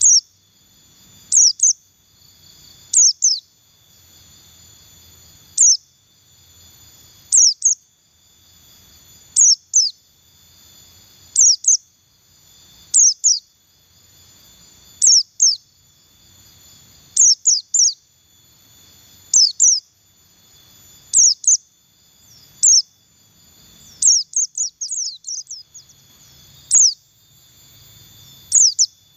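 A pleci buxtoni white-eye giving short, high chirps: quick downward-sweeping notes, singly or in pairs, about every second and a half to two seconds, with a rapid run of several notes near the end. The calls are plain twittering rather than full song. A steady high insect drone runs underneath.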